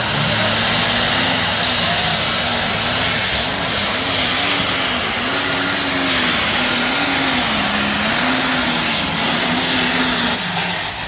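A competition pulling tractor's engine running flat out, loud and steady, with a thin high whine that holds level and then falls away near the end.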